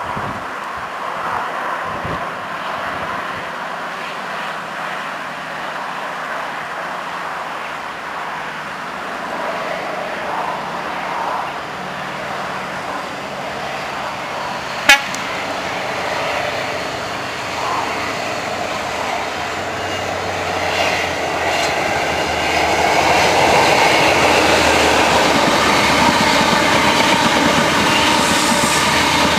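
Class 43 HST power car with a Paxman Valenta V12 diesel engine, running under power and drawing closer, its engine and turbocharger noise building. In the last third it grows louder as the train runs past close by. A single sharp click sounds about halfway through.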